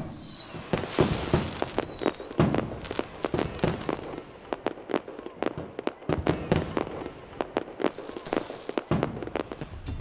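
Fireworks going off: a run of sharp bangs and crackles, with several whistles falling in pitch in the first half.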